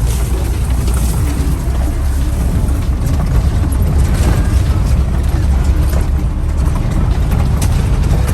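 Car on the move: a steady low rumble of engine and road noise, with faint rattles and clicks.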